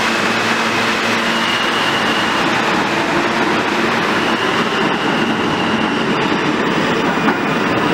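New York City subway train pulling out of an underground station, giving a loud, steady rumble of wheels on rail with a high electric whine over it.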